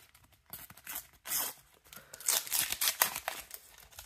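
A paper sticker packet being torn open, with the wrapper crinkling and the stickers rustling as they are handled; a few separate tearing rustles, busiest in the second half.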